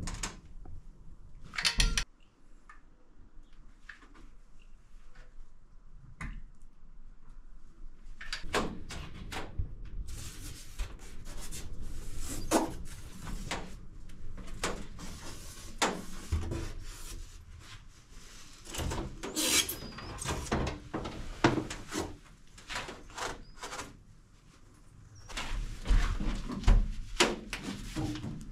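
Rigid foam insulation board being cut with a utility knife, handled and pressed down onto the floor: scattered scrapes, rubbing and knocks, loudest about two seconds in and again near the end.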